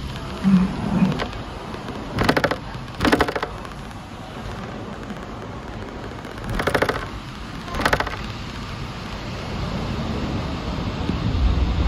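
A Hong Kong double-decker tram's bell sounding its 'ding ding' twice, each time as two short strikes about a second apart, over the steady rumble of the tram running. The rumble swells near the end.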